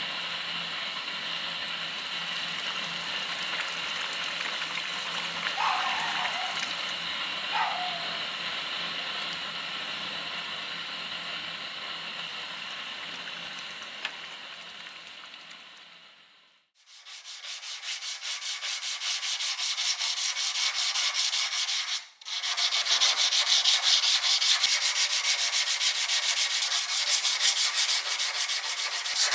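Abrasive sanding on the steel of a knife blade. It begins as a steady hum with high whining tones that fades away about halfway through, then gives way to fast, even back-and-forth rubbing strokes that stop briefly once a few seconds later.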